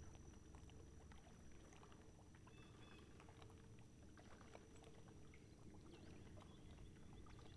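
Near silence: faint water lapping against a boat's hull, with a few small scattered ticks.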